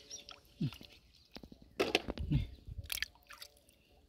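Hands sloshing and squelching through shallow muddy water and wet mud, with scattered sharp clicks and a louder burst of sloshing about two seconds in.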